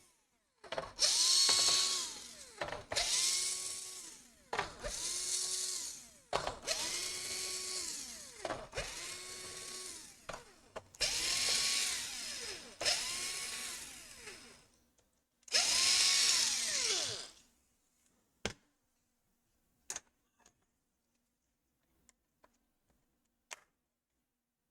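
Small electric screwdriver driving screws into a laptop's bottom cover, about eight short runs in a row. Each run spins up, holds a steady whine and winds down. A few light clicks follow near the end.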